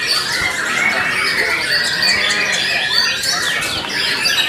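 Several caged white-rumped shamas singing at the same time in a contest round: a dense, unbroken tangle of loud whistles and quick sweeping notes laid over one another.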